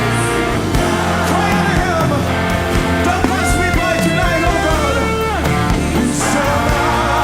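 Live worship band playing: a lead electric guitar carries a melody with bending, gliding notes over steady bass and drums, with a few cymbal swells.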